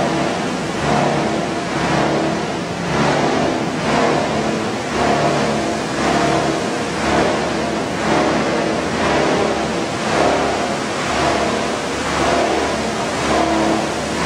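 Machinery of a PET bottle washing and recycling line running: a steady mechanical din with motor hum, swelling in loudness about once a second.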